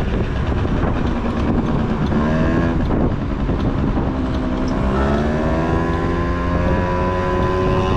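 Honda Topic moped engine running under way, its pitch rising twice as it accelerates and then holding steady, with heavy wind rumble on the microphone.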